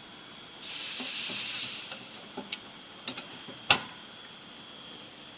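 Sheet-metal cabinet door on a polyurethane spray foam machine being shut and latched: a brief hiss about a second in, a few light clicks, then one sharp latch click near the middle. A faint steady high whine sits underneath.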